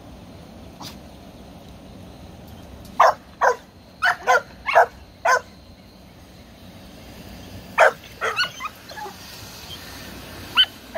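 Puppies barking: a run of six short barks about three seconds in, another cluster of barks around eight seconds, and one more near the end.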